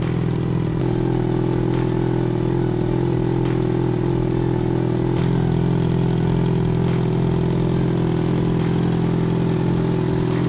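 2007 Yamaha FZ6's 600 cc inline-four engine idling steadily, with a light click repeating about twice a second, in time with a turn-signal flasher relay blinking the LED strip signals.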